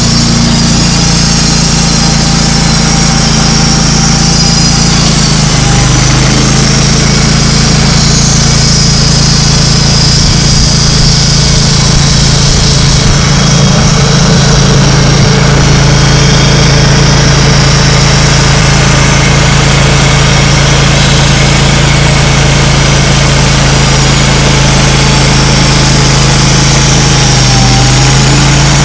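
Wood-Mizer LT35 Hydraulic portable sawmill running, its engine droning steadily and loudly; the pitch steps slightly about five seconds in and dips briefly near the end.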